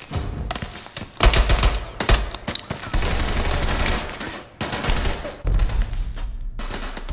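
Repeated bursts of rapid automatic gunfire, with short breaks between bursts.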